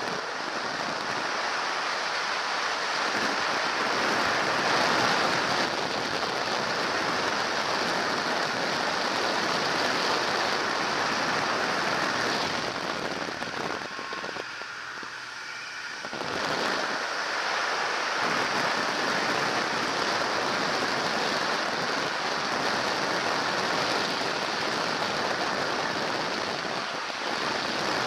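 Steady rush of airflow over the camera microphone on a microlight trike in flight: an even, dense wind noise with no clear engine note, easing briefly about halfway through.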